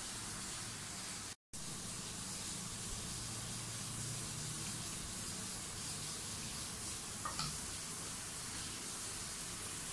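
Steady background hiss with a faint low hum, dropping out for an instant about a second and a half in.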